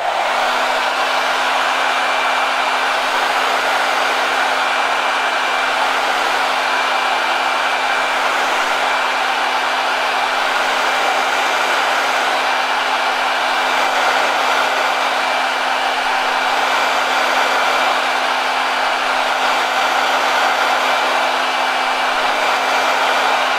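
Handheld electric hot-air dryer switched on and blowing steadily, with a constant hum under the rush of air, drying the freshly glued decal transfer glue.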